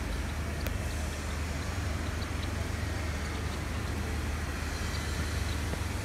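Steady outdoor background noise: a continuous low rumble with an even hiss over it, with a few faint high ticks.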